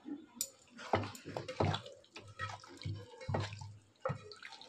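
A hand squishing and mixing marinated chicken pieces in an aluminium pot: a string of about ten irregular wet squelches with soft low thuds.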